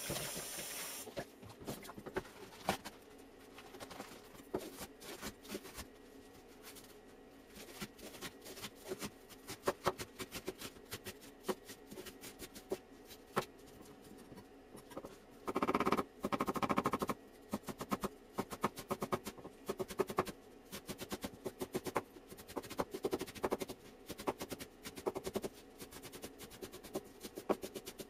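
Scattered light clicks and taps of hands handling small things, over a faint steady hum. A short hiss fades in the first second, and a louder rushing noise lasts about a second and a half near the middle.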